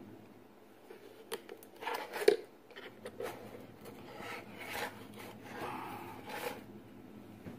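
Plastic clicks and light scraping from handling a robot vacuum's dustbin while its filter is worked loose, with one sharper click a little over two seconds in.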